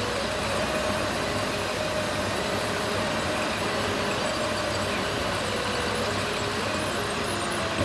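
Steady road noise inside a car's cabin at highway speed, about 69 mph: tyres on the pavement and the engine cruising, with a faint wavering tone over it.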